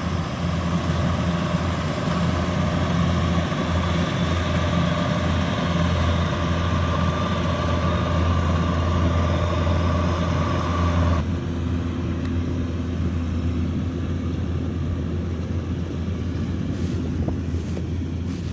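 Kubota DC-105X combine harvester's diesel engine running steadily under load with a low hum and mechanical clatter. About eleven seconds in the higher-pitched clatter drops away abruptly, leaving the lower engine hum.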